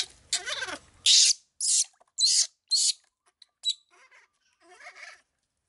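Baby monkey crying while being bathed: a wavering whimper at first, then a run of short, high, shrill screeches about twice a second that grow fainter and sparser near the end.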